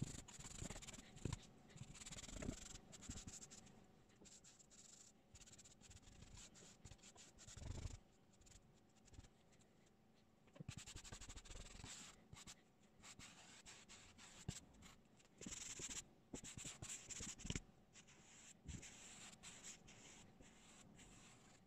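Faint, on-and-off scratching of a paintbrush working paint into the rough surface of a hardened plaster-bandage hillside.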